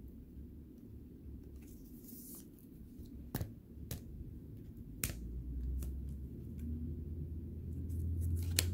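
Trading cards being handled off-camera: four sharp clicks and taps over a low rumble that grows louder from about halfway through.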